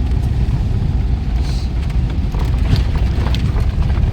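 Volkswagen Kombi van driving at low speed: a steady low rumble of engine and road noise, with a few light knocks.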